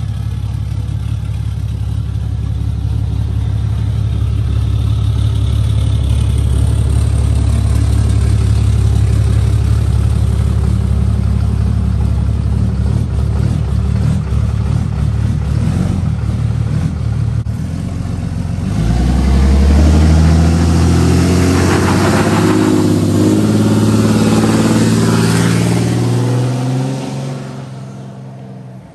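Straight-piped 6.7 L Cummins inline-six turbodiesel of a 5th-gen Ram pickup running with a low, steady drone, then about two-thirds in revving up as the truck pulls away, its pitch climbing in steps. The sound fades quickly near the end as the truck drives off.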